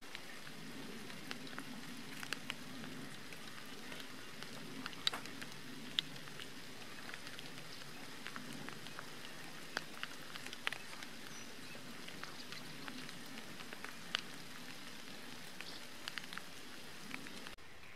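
Light rain falling: a steady hiss with scattered, irregular drop ticks.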